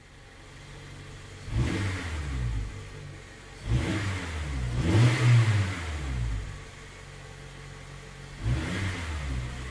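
Car engine idling and revved three times, the pitch climbing and falling back each time: briefly about a second and a half in, longest and loudest around the middle, and again near the end.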